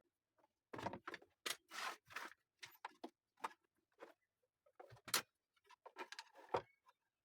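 A series of irregular knocks and clatters at uneven intervals, the sharpest about five seconds in.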